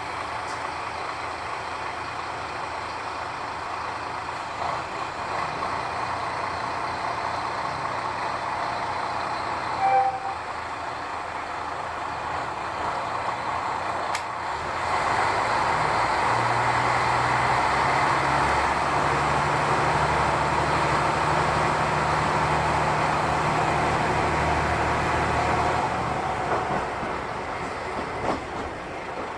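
Diesel railcar running along the track, engine and wheel noise steady. About halfway through the engine note steps up and gets louder as it works harder, then eases off near the end. A brief loud tone sounds about ten seconds in.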